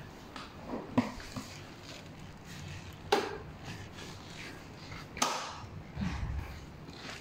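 Stroller seat being fitted onto its folding frame: a few separate hard plastic-and-metal clicks and knocks, the sharpest about a second in, then two more a couple of seconds apart and a low thump near the end.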